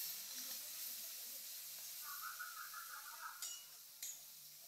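Faint, steady sizzle of a tomato-and-spice masala frying in a steel wok as a spatula stirs it, with a couple of light spatula clicks near the end.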